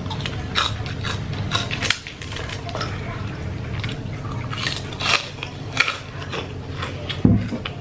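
Crunchy bites and chewing of a fried kerupuk cracker, a series of sharp crisp cracks, the loudest near the end.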